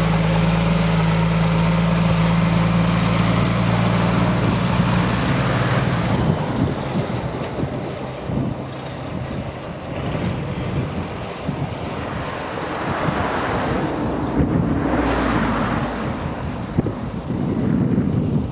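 Small narrow-gauge diesel locomotive running past at close range, its engine giving a steady low drone that drops away after about six seconds as it moves off down the line, leaving a rougher rumble with scattered knocks.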